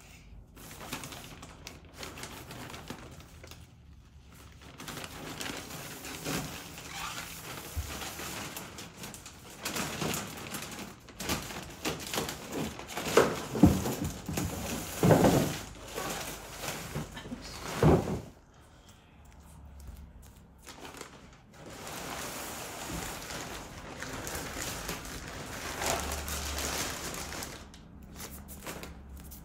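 Clear plastic shipping wrap crinkling and rustling as it is pulled and torn off a new canoe hull, with louder bursts of handling about halfway through.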